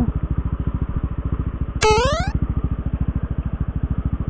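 Motorcycle engine idling with an even, fast pulse. About two seconds in, a short rising beep-like tone sounds for about half a second.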